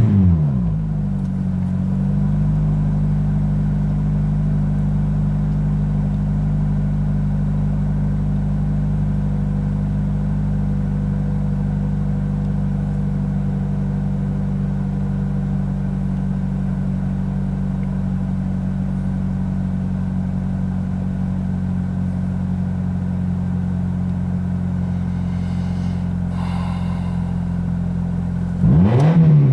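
The 2006 Toyota Corolla's 1ZZ-FE four-cylinder engine idling steadily, loud because the muffler has snapped off, heard from inside the cabin. It settles down from a rev in the first couple of seconds and is blipped up and back down once near the end.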